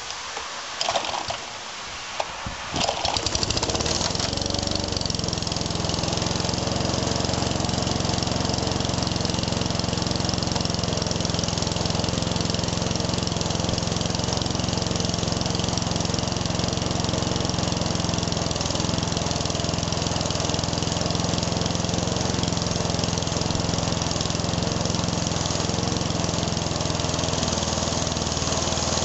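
Mountfield RV150 single-cylinder four-stroke lawnmower engine being cold-started on choke: a couple of short pulls of the recoil starter, then it catches about three seconds in and runs steadily.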